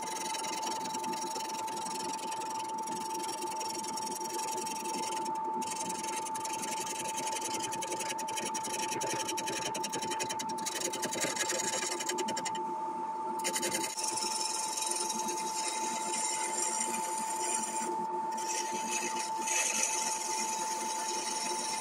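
Wood lathe running with a steady motor whine while a gouge cuts a spinning poplar blank, giving a continuous scraping hiss of the cut. The cutting noise breaks off briefly a few times, as around five seconds in and again about two-thirds of the way through, while the motor whine carries on.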